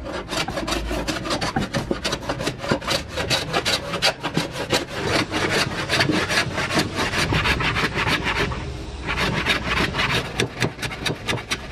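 Metal hand plane cutting shavings from a hardwood board, one quick scraping stroke after another, with a short pause about eight and a half seconds in.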